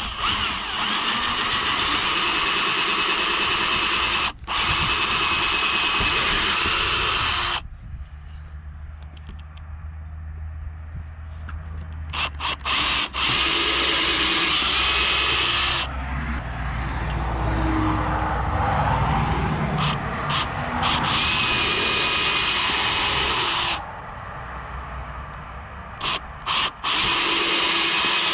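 Power drill boring mounting holes, running in about four runs of a few seconds each, with short stops between and a brief stop partway through the first run.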